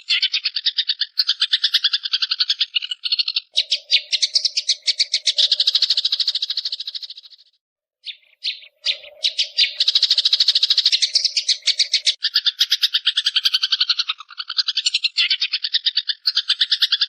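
Long-tailed shrike (cendet) giving its rapid 'ngekek' chatter: long runs of fast, evenly repeated notes that break off briefly about halfway through, then resume.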